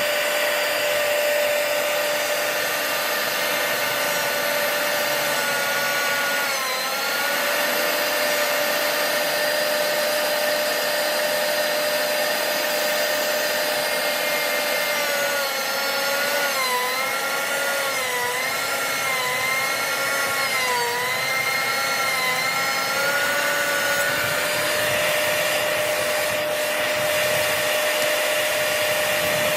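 DeWalt benchtop thickness planer running with a steady high motor whine. Its pitch sags briefly about six seconds in and again several times through the middle as a board feeds through and the cutterhead takes load, then steadies as it runs empty.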